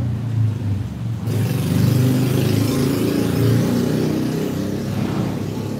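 A motor engine running steadily, with a louder rushing noise joining about a second in and easing off near the end.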